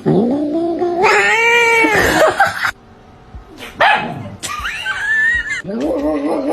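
Domestic cat yowling: three long, drawn-out meows, the first rising and then falling in pitch for more than two seconds, the last wavering in pitch.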